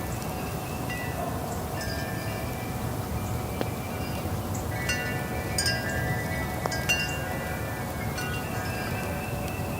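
Wind chimes ringing in the breeze: clusters of clear, high ringing tones struck at irregular moments every second or so, thickest around the middle, over a steady low rush of wind.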